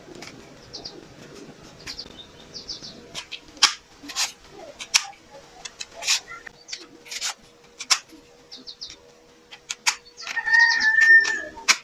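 A series of sharp, irregular clicks and snaps, with short high chirps between them. Near the end a rooster crows for about a second.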